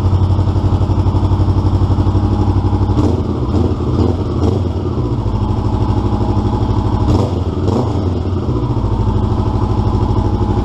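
2015 Honda CB500F parallel-twin engine idling through an AnnPee slip-on muffler with a carbon fiber single baffle on a cat-deleted exhaust, an aggressive steady exhaust pulse. A couple of short throttle blips break the idle about three to five seconds in and again around seven seconds.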